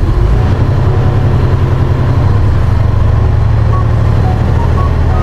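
Bus engine idling, a steady low rumble.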